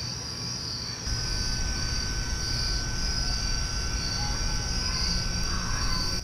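Evening ambient noise with crickets chirring steadily and an air-conditioning unit running as a low drone with a thin steady whine, the drone louder from about a second in.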